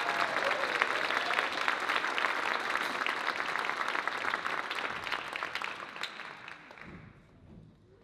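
Audience applauding in a concert hall, a dense patter of clapping that dies away about six to seven seconds in.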